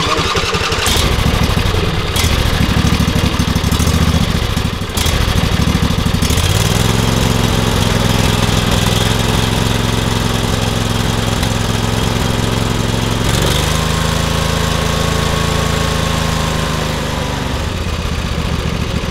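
Riding mower's 24 hp Briggs & Stratton V-twin engine running just after its head gasket replacement. The engine speed steps up about six seconds in and drops back lower near the end.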